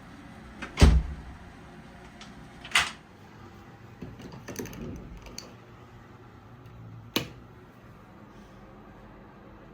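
Sharp knocks, the loudest about a second in and others near three and seven seconds, with a few lighter clicks in between over a quiet background.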